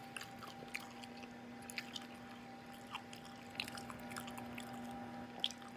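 A person chewing fufu and egusi soup with their mouth open, lip-smacking, with a scatter of short wet smacks and clicks. A faint steady hum runs underneath.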